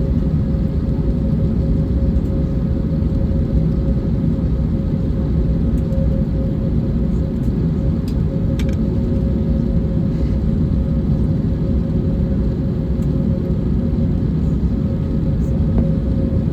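Steady cabin rumble inside an Airbus A321neo on the ground before takeoff, engines running at low thrust, with a constant hum and a few faint clicks.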